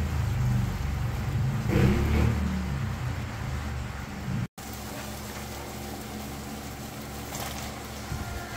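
Corned beef sizzling and being stirred with a spatula in a nonstick pan on high heat, over a steady low hum. The sound cuts out for an instant about halfway through and comes back quieter.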